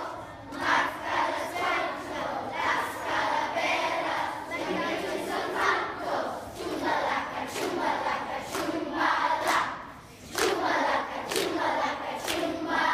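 A large group of schoolchildren singing together in phrases, with a brief pause about ten seconds in.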